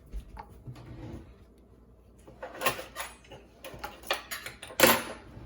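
Kitchen handling noises: scattered knocks and short scraping clatters, with the sharpest knock near the end.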